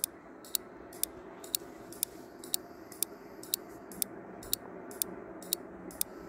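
Quiz countdown-timer sound effect: a clock ticking evenly, about two ticks a second, over a faint steady background hum.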